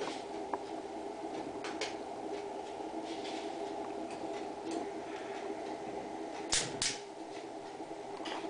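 Steady mechanical hum, like a small fan motor, with faint scattered clicks and two sharp clicks close together a little past the middle.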